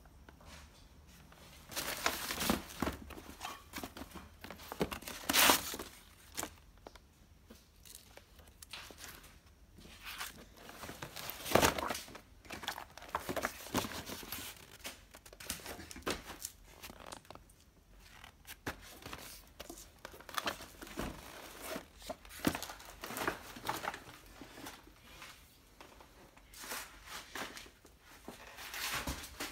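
Papers and plastic being handled and rummaged through, rustling and crinkling in irregular bursts, the loudest about five and twelve seconds in.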